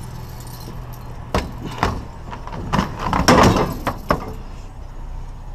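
Several sharp knocks and a short rattling clatter of hard objects being handled, loudest a little past the middle, over a steady low hum like an idling vehicle.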